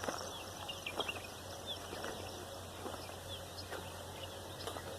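Several small birds chirping in a dawn chorus: many short, high calls overlapping and scattered throughout. Faint footsteps fall about once a second.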